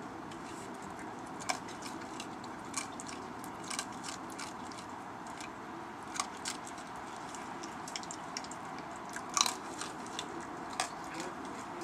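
Raccoon crunching and chewing hard dry food: irregular sharp crunches, the loudest about nine seconds in, over a steady background hiss.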